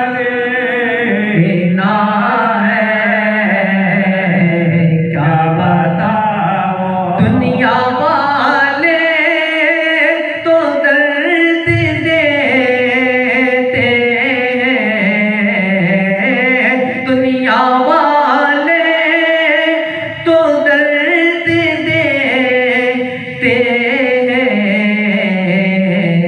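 A male voice sings an Urdu naat (Islamic devotional song) in long held, ornamented notes that waver in pitch.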